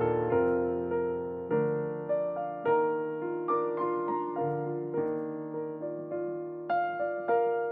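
Background music: a gentle solo piano piece, single notes and chords struck about every half second and left to ring.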